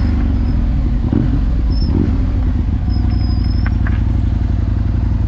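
Aprilia Tuono V2 motorcycle engine running at a steady, even pitch while the bike cruises through a bend, with a rush of noise over it.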